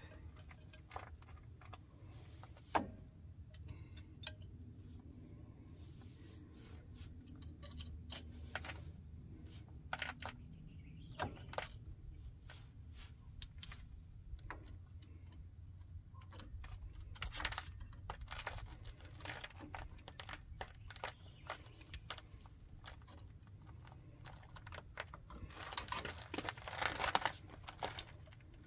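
Scattered light metallic clicks and small knocks of hand tools and brake parts being handled during a parking brake cable job, with a busier patch of rustling and clatter near the end.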